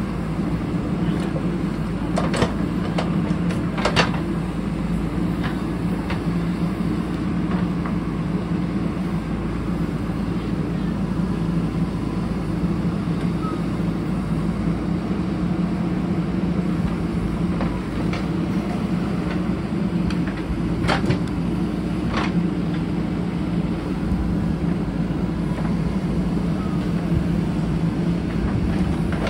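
JCB backhoe loader's diesel engine running steadily under work, with a few sharp clanks about two and four seconds in and twice more near the end.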